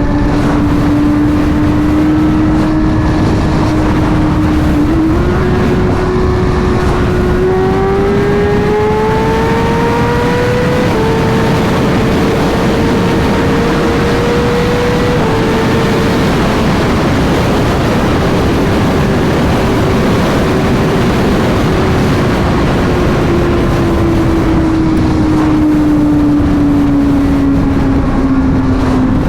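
Sport motorcycle engine running hard at highway speed over a steady rush of wind noise. Its pitch holds, climbs over several seconds from about five seconds in, levels off, then falls slowly near the end as the throttle eases.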